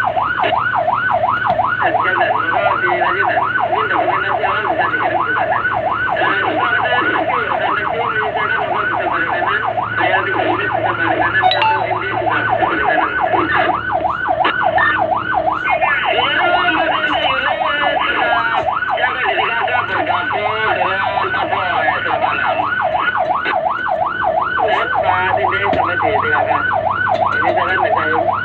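Fire truck siren running in a fast yelp, its pitch sweeping up and down about three times a second, with a second, lower wavering tone beneath it and the truck's engine running underneath.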